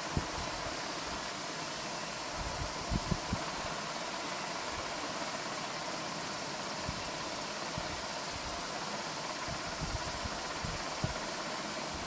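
Steady background hiss, with a few soft, short knocks as an oil pastel is worked over paper on a drawing board: one about a second in, a small cluster around three seconds, and a few more later on.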